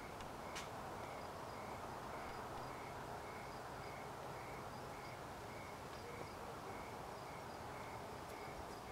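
Outdoor evening ambience: a cricket chirping steadily, about two high chirps a second, over a soft hiss. A single faint click about half a second in.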